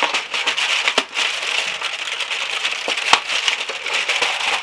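Chocolate advent calendar being opened: the cardboard and packaging crinkle and crackle continuously, with many small clicks and a sharper snap about three seconds in.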